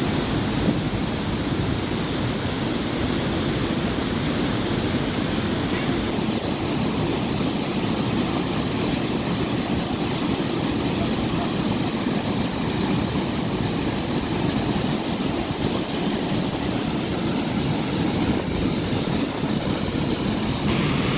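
A waterfall's falling water rushing steadily: an even, unbroken noise.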